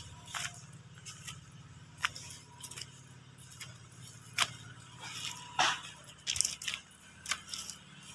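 Footsteps on dry leaf litter: scattered crackles and sharp ticks at an uneven pace, over a faint steady low hum.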